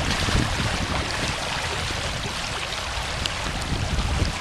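Swollen, flooded Brandywine Creek rushing in a steady hiss after Hurricane Sandy, with wind buffeting the microphone in a low, uneven rumble.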